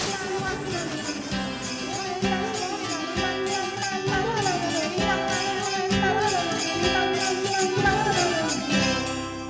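Upbeat cartoon music with a melody over a steady beat, fading out near the end.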